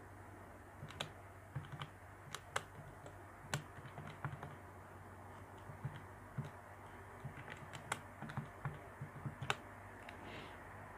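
Buttons of a Casio scientific calculator being pressed: an irregular run of soft clicks, with a few sharper presses among them, as a calculation is keyed in.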